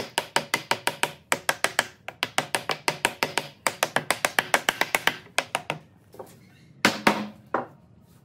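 Rapid, even tapping strikes on wood, about seven a second in runs of a second or so with short pauses, then two heavier knocks near the end.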